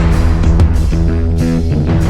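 Rock music with guitar and bass, loud and steady.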